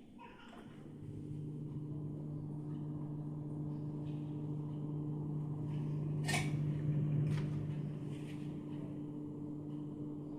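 Refrigerator humming steadily, with a few clicks and knocks, the loudest about six seconds in.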